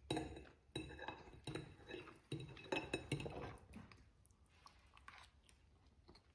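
A metal fork clinking and scraping on a ceramic plate as spaghetti is twirled, together with chewing, with a string of short clinks and knocks in the first few seconds before it goes quieter.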